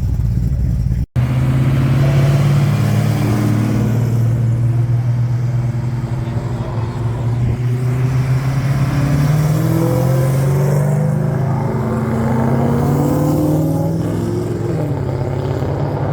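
A car engine running at low revs with a deep, steady note whose pitch drifts slightly up and down. The sound drops out for an instant about a second in.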